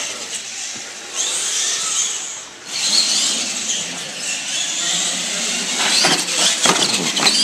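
Radio-controlled monster trucks' motors whining as they race, the pitch rising and falling with the throttle. A few sharp knocks come near the end as a truck goes over a ramp.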